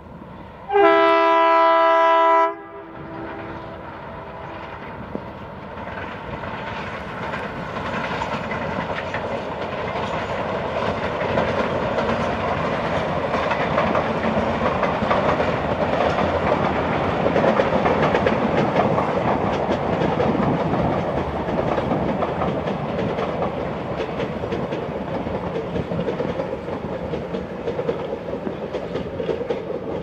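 An ALCo WDG 3A diesel locomotive sounds its horn once, a loud chord held for under two seconds about a second in. After it the passenger train rolls past with its wheels clacking over the rail joints, growing louder toward the middle and staying steady to the end.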